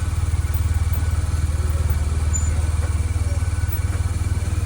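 Loud, steady wind rumble buffeting the microphone on a moving 2005 BMW R1200RT motorcycle, with the bike and road running underneath. The "bad wind sound" swamps everything else.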